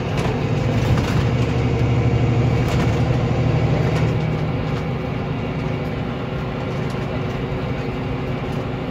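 Volvo B9R coach's 9.4-litre six-cylinder diesel engine pulling along, heard from inside the passenger cabin together with tyre and road noise. The low engine hum is strongest at first and eases off about halfway through.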